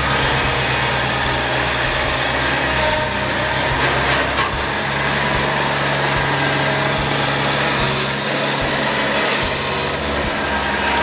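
Kubota compact diesel tractor's engine running steadily as the tractor drives across the floor, dragging its rear box blade through loose stone dust.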